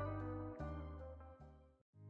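Soft background music: held notes that change twice and die away, cutting out completely for a moment near the end.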